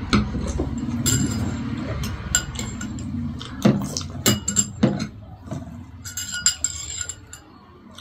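Eating at a table: a spoon and chopsticks clink sharply against ceramic bowls and plates many times, amid close chewing. The clinks thin out near the end.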